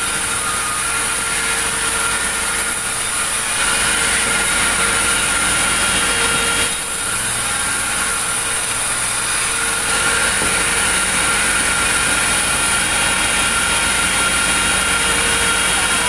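An engine or motor running steadily, with a constant whine over an even rushing noise.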